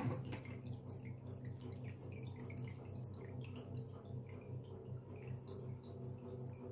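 Water dripping and trickling from a thin tube into a cup in a small water-harvesting model, with scattered irregular drops over a steady low hum.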